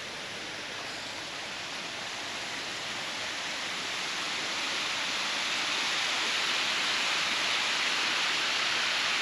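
Waterfall on a river rushing steadily, growing gradually louder. The flow is high from recent heavy rain.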